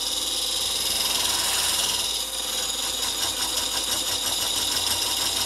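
Handheld electric whisk running steadily in a glass bowl, beating egg whites into a stiff white foam.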